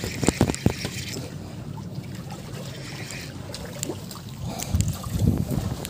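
Sea water lapping and sloshing against a concrete breakwater, with wind on the microphone. A few sharp clicks come about half a second in, and low bumps near the end.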